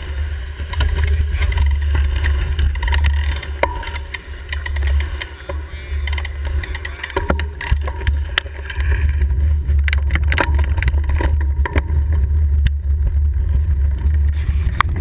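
Wind buffeting the microphone of a bicycle-mounted camera during a fast downhill ride, a heavy steady rumble, with tyre and road noise and several sharp rattles from bumps in the road.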